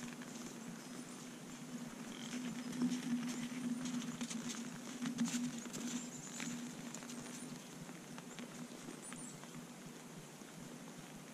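Whitetail deer feeding in snow: irregular small crunches and clicks of hooves and chewing, busiest in the middle, over a steady low hum.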